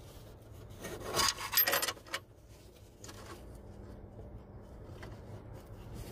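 Fingers and a bolt scraping and rubbing against a metal bracket while a bolt is worked into place by hand: one scraping rub about a second in, lasting about a second, then fainter handling noises.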